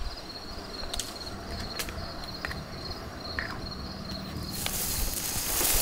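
Insects chirping in a steady high, pulsing trill, with a few small sharp clicks from a trail camera being handled; a rustling noise rises near the end.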